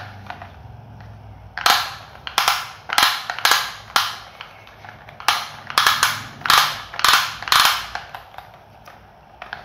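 Plastic toy helicopter being handled: a run of sharp plastic clacks, about two a second, for several seconds before stopping.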